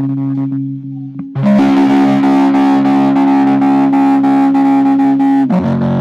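Electric guitar played through a tremolo pedal: held chords pulse rapidly and evenly in volume. A new chord is struck about a second and a half in, and it changes to a lower chord near the end.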